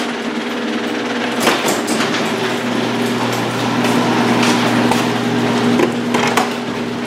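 A machine running with a steady hum, with a few sharp knocks and clanks over it.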